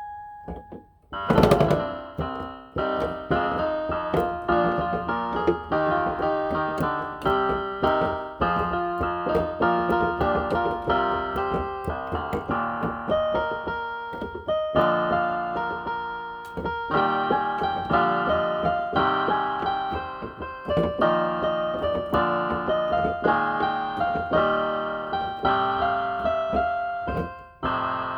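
Budget electronic keyboard on a piano voice, played by a self-taught beginner: a single held note, then a loud chord about a second and a half in, followed by a steady run of melody notes over chords, a few notes a second.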